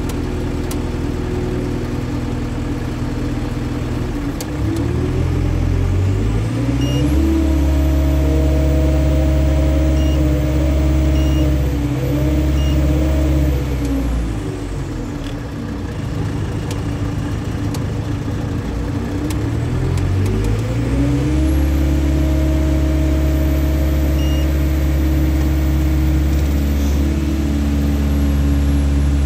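Terex AC100 crane's diesel engine running, revving up about five seconds in and holding higher revs, dropping back to near idle around fifteen seconds, then revving up and holding again from about twenty seconds. A high whine rises and falls with the revs, and a few faint short beeps sound over it.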